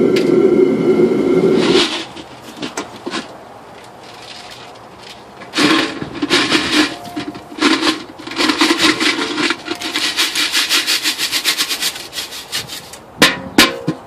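Copper shot scraping and rattling against a metal pan as it is tipped and shaken out, in rapid repeated scrapes, then two sharp knocks near the end. It is preceded by a loud, steady hum with held tones that cuts off about two seconds in.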